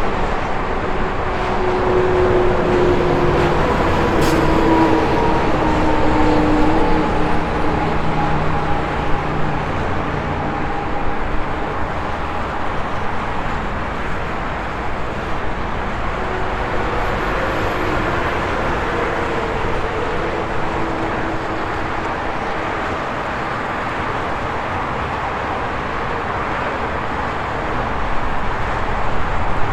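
Highway traffic: a steady rush of tyres and engines from trucks and cars passing, with engine hums that slowly drop in pitch as vehicles go by in the first half, and a swell as another vehicle passes near the end.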